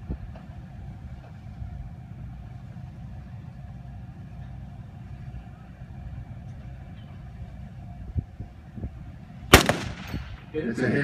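A single rifle shot from a TrackingPoint M600 5.56 mm precision-guided rifle, a sharp crack about nine and a half seconds in, after a long stretch of low wind rumble and a faint steady hum.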